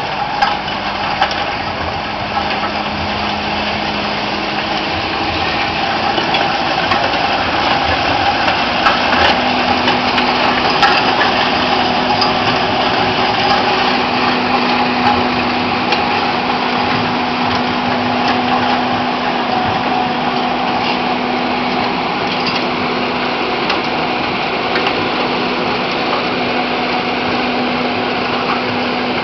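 Skid steer loader running with its snow blower attachment: a steady, loud engine and blower sound whose pitch steps up slightly about nine seconds in.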